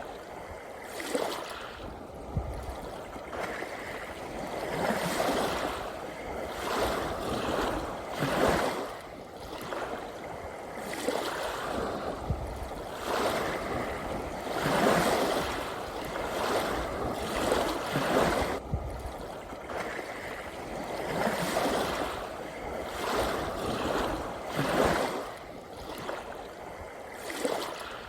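Gentle sea waves lapping and splashing, a wash every second or two over a steady rush of water.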